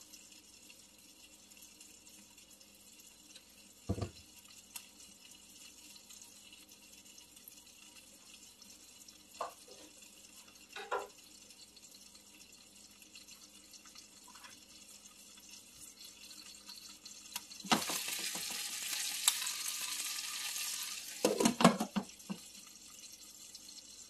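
Covered pan of chicken feet simmering with a faint, steady bubbling hiss and a few soft knocks. About eighteen seconds in, a loud hissing rush lasts about three seconds, followed by a brief burst of clattering as food goes into the pan.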